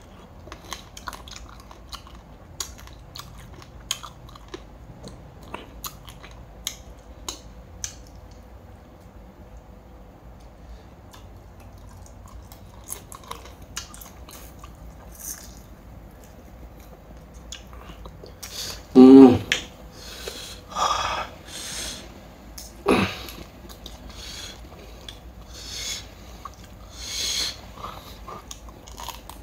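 Close-miked chewing of raw crab: many small wet mouth clicks and smacks. About two-thirds of the way through there is a short hummed 'mm', followed by a sharp knock and louder wet smacking bursts toward the end.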